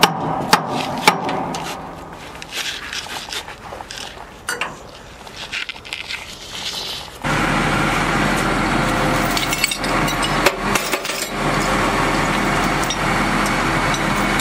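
Sharp metal clinks and knocks of tools and fittings on heavy machinery, then about halfway through a vehicle engine is heard running steadily with a low hum.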